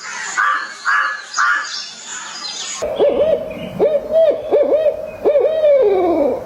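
A run of hooting calls, each a steady mid-pitched tone with quick downward swoops, starting abruptly about three seconds in after a few short, higher chirping calls over a hiss.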